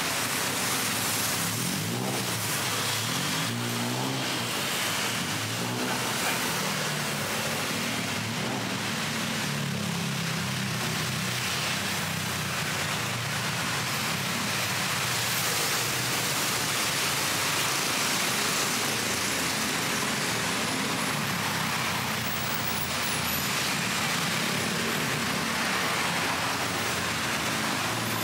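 Steady city road traffic: several vehicle engines running and passing over a constant wash of traffic noise, with engine notes rising and falling in the first few seconds.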